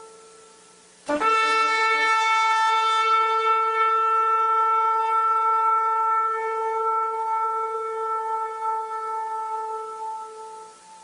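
Shofar blown in one long, steady, single-pitched blast. It starts abruptly about a second in and holds for about nine seconds before fading near the end, after the tail of an earlier blast dies away.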